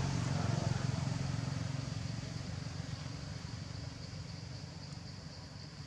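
Low droning engine of a passing vehicle, fading steadily away.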